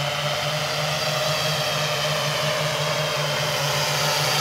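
Hexacopter's electric motors and propellers buzzing steadily in flight, growing gradually louder as it flies back toward the listener.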